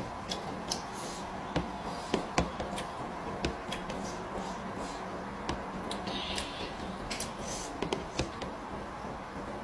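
A person eating raw petai (stink beans) and fresh greens by hand: scattered short, sharp chewing and mouth clicks, over a steady background hum.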